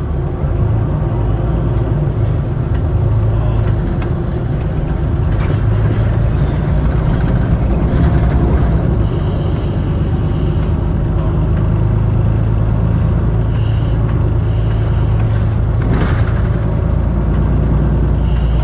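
Inside a moving city bus: steady low engine and road rumble while driving, with a few brief rattles or knocks.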